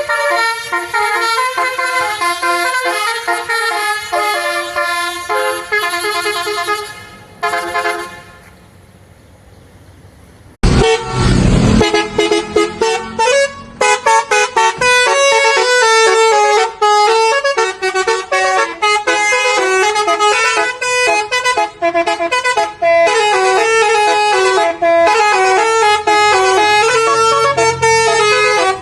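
Tour bus basuri (telolet) musical horn playing a tune of stepping notes, breaking off for a couple of seconds about eight seconds in. A loud low thump comes about eleven seconds in, then the horn tune resumes.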